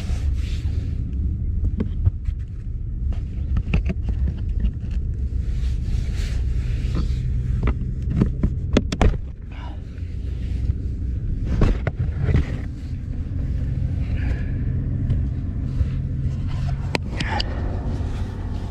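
Rustling, scraping and sharp plastic clicks of hands working on wiring and trim under a car's dashboard, over a steady low rumble.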